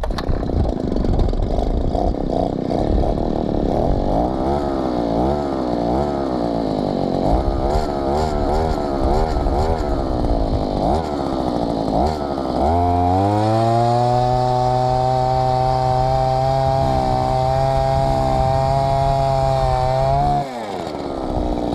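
Eskimo Stingray S33 ice auger's small two-stroke gas engine running with the auger out of the ice. Its pitch wavers up and down unevenly for over half the time, then it revs up and holds a steady high speed for several seconds before dropping back to a quieter, lower running sound near the end.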